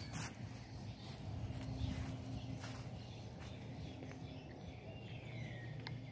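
Outdoor ambience: a steady low hum with a few light clicks, and a bird's single falling whistled call about five seconds in.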